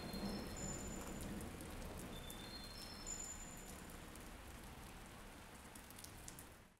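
Soft, steady rain-like patter with scattered light clicks and a few short, high chiming notes. It fades gradually and cuts out at the very end.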